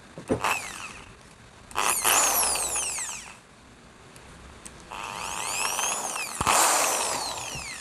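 Worx WX317 600 W corded hammer drill run in two short bursts. Each time the motor whines up and then winds down, falling in pitch, while a wood bit is being secured in its 13 mm keyless chuck. A few sharp clicks come near the start and in the middle of the second burst.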